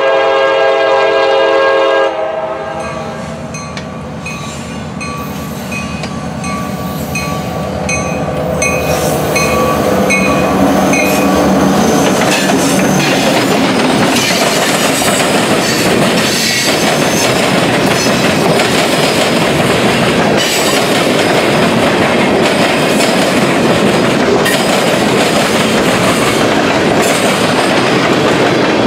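CSX EMD GP38-2 diesel locomotive blowing its horn in one loud blast that cuts off about two seconds in, while a bell dings about twice a second. The locomotive then rumbles past close by, and a long string of freight and tank cars follows: steady loud rolling of wheels on rail with clickety-clack and occasional clanks.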